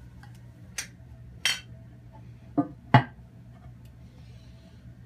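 Four sharp clinks and knocks of hard objects within about two seconds, the last the loudest, over a steady low hum.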